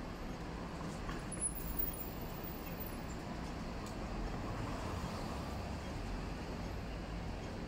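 City street traffic: a steady low rumble of passing vehicles, swelling as one goes by about four to five seconds in, with a couple of short knocks near the start.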